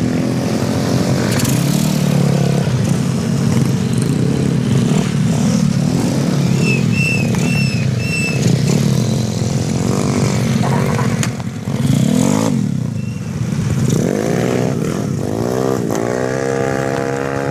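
Motor scooter engines running on the move, with wind buffeting the handlebar-mounted phone microphone; about fourteen seconds in the engine note climbs as the scooter accelerates. Four short high chirps sound in the middle.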